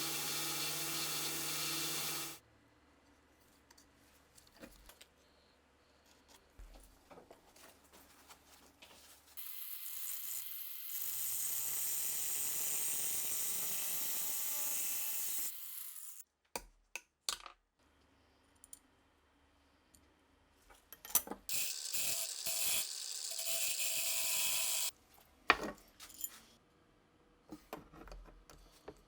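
Gunsmithing workbench sounds: small metal parts clicking and clinking as they are handled, and two long stretches of steady hiss. Something mechanical runs steadily for the first couple of seconds, then stops.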